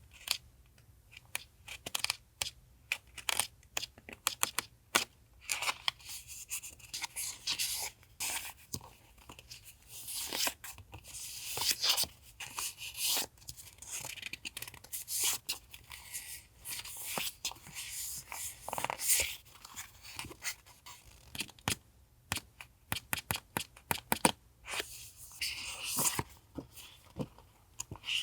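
Paper rustling and crinkling in many short, irregular bursts as sheets of paper and paper ephemera are taken out of an envelope and handled, with brief tearing-like rips.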